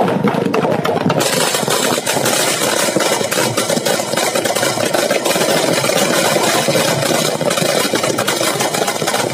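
A long string of firecrackers (a ladi) going off on the ground: a dense, rapid, unbroken crackle of small bangs.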